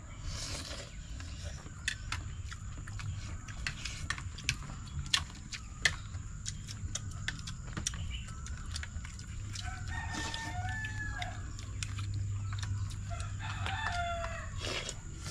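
An animal calls twice, about ten and fourteen seconds in, over scattered sharp clicks and taps.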